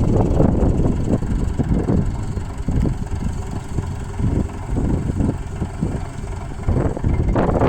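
Tractor engine idling with a steady low rumble, the cultivator just hitched to it.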